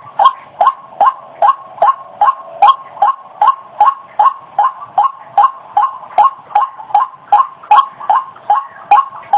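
White-breasted waterhen (ruak-ruak) calls repeated in a steady, monotonous series, about two and a half short 'kruok' notes a second, as played on a bird-lure track.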